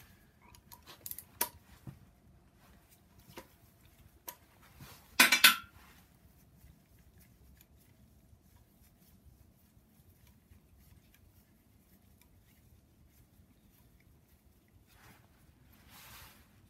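Metal hand tools and a socket wrench clinking against a cast engine block while bolts are being undone: a few light clinks in the first two seconds, then a louder half-second metallic rattle about five seconds in, after which it is mostly quiet.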